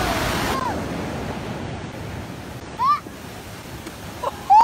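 Rushing water, then the steady wash of waves breaking on a beach, with two short high-pitched rising cries, one about three seconds in and one near the end.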